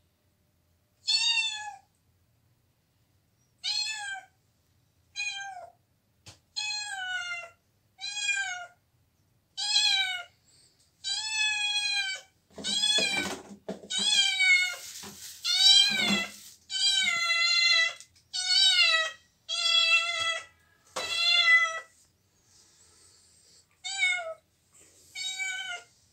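Tabby cat meowing over and over, roughly once a second. Each meow rises and then falls in pitch, and the calls come closer together and run longer in the middle before a short pause and two last meows.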